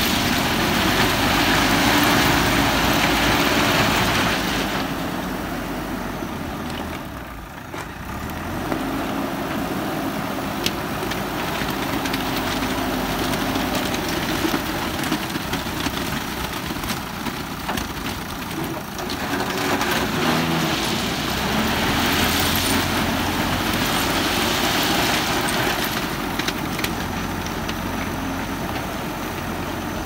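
JCB 4DX backhoe loader's diesel engine running under load, revving hard with a strong hiss for the first few seconds and again about two-thirds of the way through, easing off in between while the loader works its front bucket and drives over gravel.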